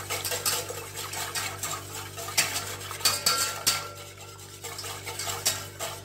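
Metal spoon stirring in a metal saucepan, scraping and clinking against the pan with frequent sharp clicks, as flour is stirred into a thin milk and cocoa mixture.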